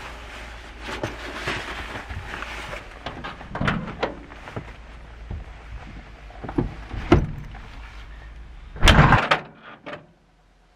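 Rustling and several knocks of a backpack being put on and someone climbing out of a Dodge Sprinter camper van, then the van's door shut hard about nine seconds in, the loudest sound.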